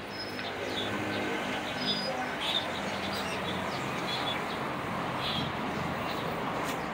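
Birds chirping in short, high calls over a steady outdoor background of traffic, with a low engine hum that fades out near the end.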